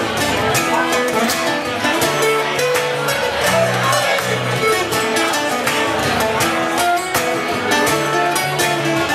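Acoustic guitar strummed steadily in a live song, an instrumental passage without singing.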